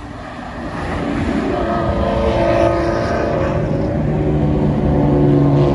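Engine drone that builds up over the first couple of seconds and then holds steady, with several sustained tones.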